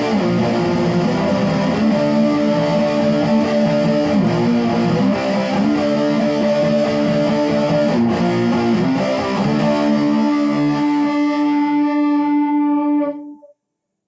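Guitar playing held chords that change every few seconds. The last chord rings on and then cuts off near the end.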